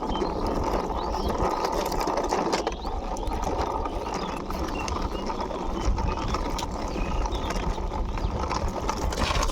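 Wheels of a large toy car rolling as it is pushed by hand along a hard surface: a steady rolling rattle.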